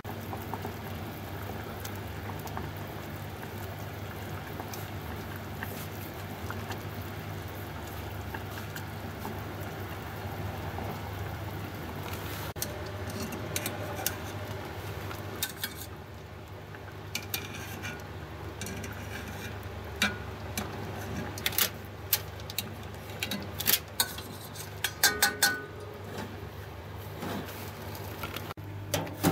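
Aluminium cooking pot being handled on a gas stove: a scattered run of sharp metallic clinks and knocks from about halfway on, over a steady low hum.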